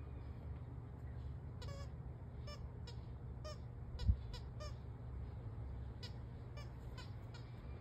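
Squeaky dog toy ball squeaking again and again in short squeaks as a dog chews it, with a single dull thump about four seconds in.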